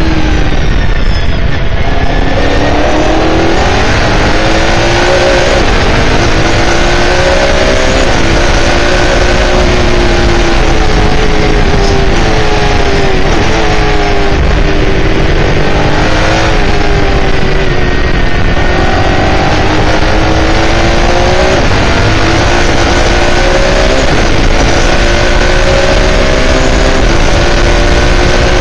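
Onboard sound of an S5000 race car's 5-litre V8 at racing speed: the engine note climbs as it accelerates through the gears, drops sharply at each upshift, and falls away under braking and downshifting into corners, repeating several times. Wind and tyre noise run underneath.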